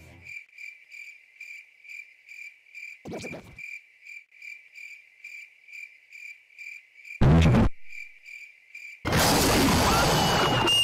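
Crickets chirping steadily, about three chirps a second. There is a short thud about three seconds in and a loud heavy boom at about seven seconds. From about nine seconds a loud, harsh rush of noise sets in, with a brief high whistle near the end.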